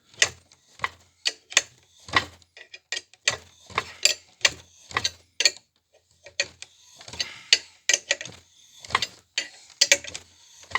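Injector-sleeve puller being wound out of a diesel cylinder head with a hand wrench: sharp metallic clicks, about one or two a second, with a short scraping stretch about seven seconds in. The corroded sleeve is coming loose and sliding out.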